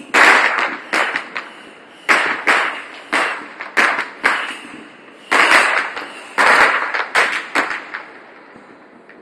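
Fireworks going off: a rapid, irregular series of sharp bangs, several in a second at times, each with a short echoing tail, tailing off near the end.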